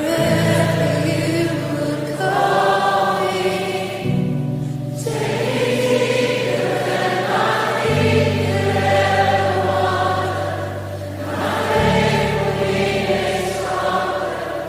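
Background music: slow choral singing over sustained chords, the low notes changing about every four seconds.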